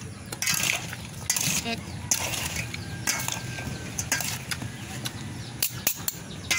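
Metal spoons scraping and clinking against a stainless steel mixing bowl as a wet chopped salad is tossed, in uneven strokes about once a second, with a few sharper clicks near the end.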